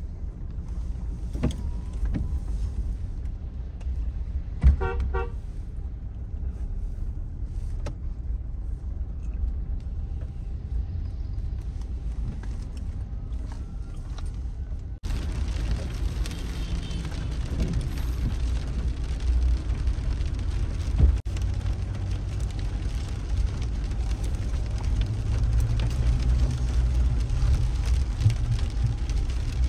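Steady low engine and road rumble heard from inside a moving car's cabin, with a short car horn toot about five seconds in. About halfway through, a steady hiss joins the rumble.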